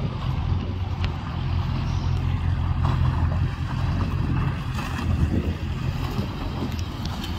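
Engine of an off-road 4x4 running steadily, a low even rumble with no revving.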